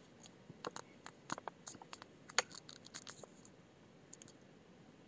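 Faint scattered clicks and light crinkles of small plastic items being handled, bunched over the first three seconds or so, then quiet room tone.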